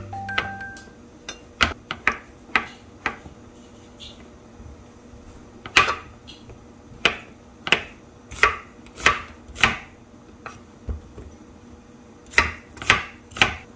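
Chef's knife slicing king oyster mushrooms and, near the end, an onion on a wooden cutting board: separate sharp knife knocks on the board, unevenly spaced, bunching into a quick run of strokes near the end.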